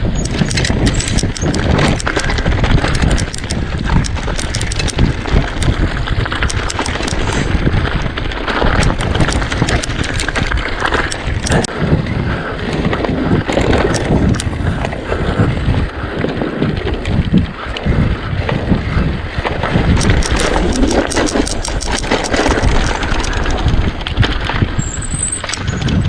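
Mountain bike ridden over rough single-track: the tyres run over the rough ground and the bike rattles with a dense stream of clicks and knocks.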